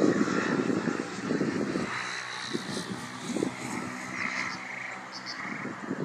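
Wind buffeting the microphone in uneven gusts, a low rumble that swells and fades, with a few faint high chirps over it.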